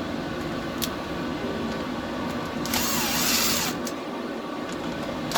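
Chainsaw recoil starter pulled once, cranking the engine without it catching: a rough whirring burst about three seconds in, over a steady background hum.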